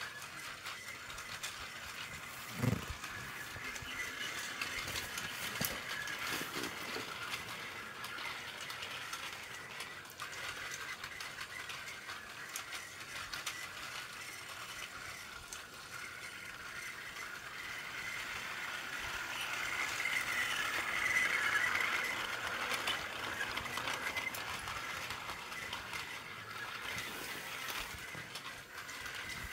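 Plarail battery-powered toy train, several motorized cars coupled into one long train, whirring and rattling along plastic track; the whir swells about twenty seconds in, then eases. A single thump about three seconds in.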